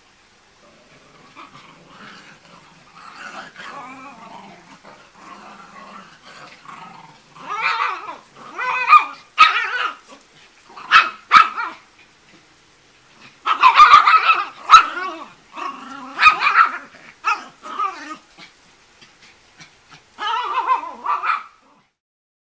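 Small dogs, chihuahuas and a miniature pinscher, play-fighting: quiet growling at first, then, from about seven seconds in, louder growls and sharp barks in bursts. These are play growls and barks, not a real fight.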